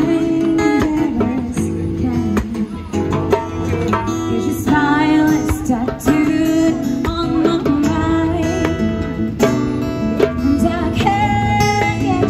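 Live acoustic band: a woman singing into a microphone over strummed acoustic guitar, with a hand drum keeping a steady beat.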